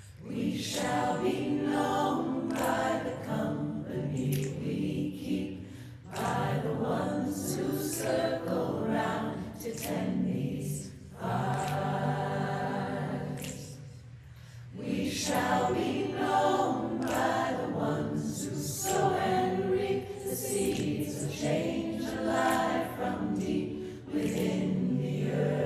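A choir singing, in phrases separated by short pauses.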